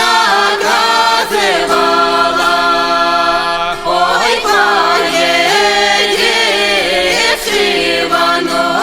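Background music: chant-like vocal singing over steady held low tones.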